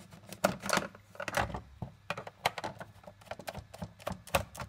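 Sharp plastic clicks and taps in a quick, irregular run as the back plate of a Futaba T6J radio transmitter is pried loose and lifted off, its four screws already out.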